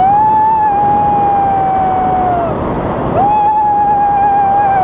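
A person's voice holding two long, high whooping cries, each sliding up at the start; the first lasts about two and a half seconds and the second begins about three seconds in. Wind rushes on the microphone underneath.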